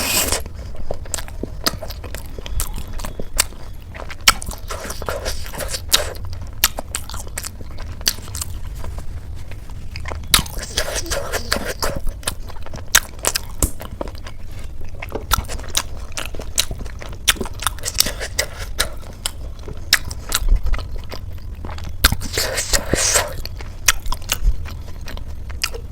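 Close-up mouth sounds of eating crisp, flaky khasta samosa with ghugni: repeated crunching bites and wet chewing with many small sharp clicks, over a steady low hum.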